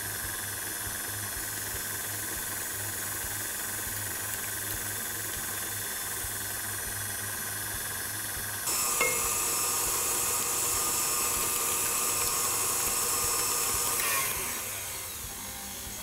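KitchenAid Artisan stand mixer running, its flat beater paddle beating a butter, sugar and egg batter in a glass bowl: a steady motor whine. About 9 s in the whine becomes louder and changes pitch, then eases down again near the end.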